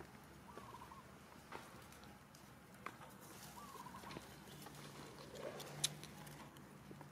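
Long-tailed macaques moving on dry leaf litter: faint rustling and scattered light clicks, with two short warbling chirps and one sharper click near the end.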